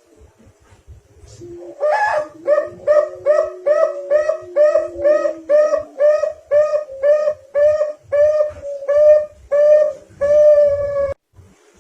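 Zebra dove (perkutut) cooing song, played back as a lure recording: a long run of short, hooked notes at about three a second, the last few longer and slower, cutting off abruptly near the end.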